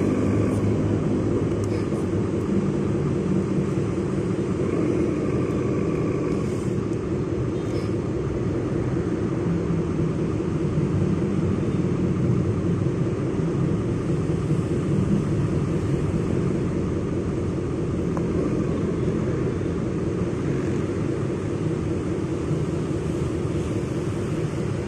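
Handmade RC trucks running, their small electric motors and gearboxes making a steady rumbling drone. A faint whine rises above it at the start and again about five seconds in.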